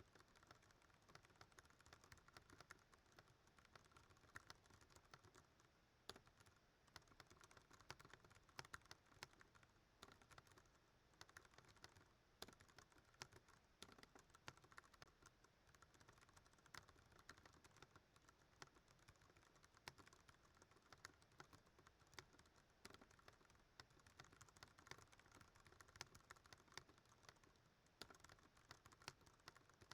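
Ducky One 2 Mini mechanical keyboard with Cherry MX Brown switches being typed on fast and continuously during a typing test, a rapid stream of key clicks with only brief hesitations.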